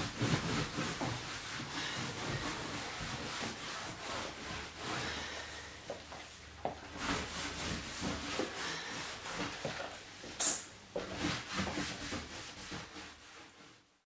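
A cloth rubbing and wiping over a leather sofa's cushions in irregular strokes, with one short squirt from a trigger spray bottle about ten seconds in.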